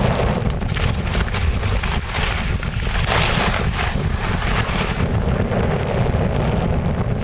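Wind buffeting the microphone of a camera carried by a downhill skier, a loud steady rumble, with the hiss of skis on packed snow swelling and fading through the turns, loudest about three seconds in.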